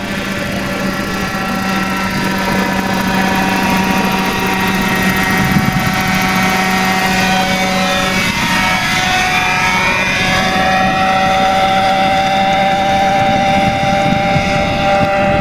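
A 1:4 scale model Bell 47G helicopter flying past, its Zenoah 26 two-stroke petrol engine and rotor making a steady drone. The sound grows louder over the first few seconds, and its pitch shifts about halfway through as the helicopter passes.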